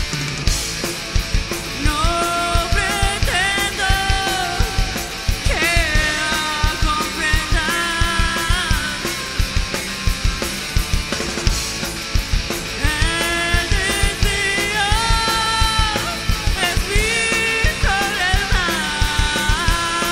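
Live rock band playing loudly: a drum kit keeps a steady beat under electric guitars and bass. A bending, wavering melody line comes in about two seconds in, breaks off around the middle, and returns for the second half.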